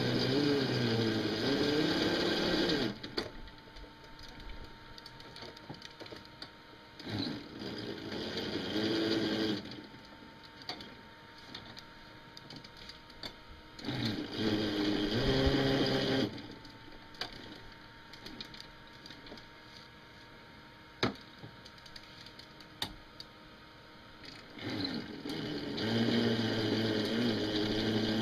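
Homemade battery-electric mini bulldozer's drive motor whining in four runs of a few seconds each as it pushes dirt, its pitch wavering. Between the runs it is quieter, with a few small knocks and clicks.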